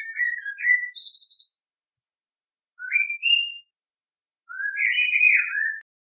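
Common blackbird singing: mellow fluted phrases, the first ending in a short, high, thin twitter about a second in, then, after a pause, two more short fluted phrases rising in pitch.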